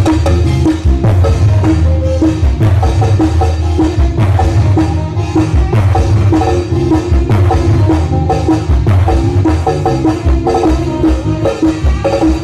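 Loud music with heavy bass and a busy percussion beat, without singing.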